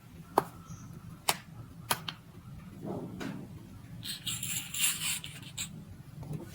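Kinetic sand being worked by hand and tool: three sharp taps or clicks in the first two seconds, then a gritty crumbling rustle about four seconds in as the sand is cut and breaks apart.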